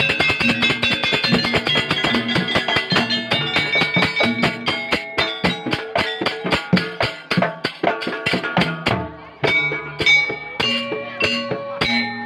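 Instrumental live band music: a fast, dense drum pattern under steady plucked-string and keyboard-like notes. The playing drops back briefly about nine seconds in, then picks up again with sparser drum strokes.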